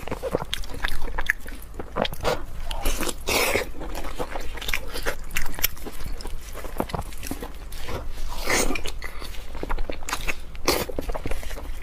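Close-miked biting and chewing of braised pork hock, with a dense run of short mouth clicks and snaps, and gloved hands pulling the meat apart.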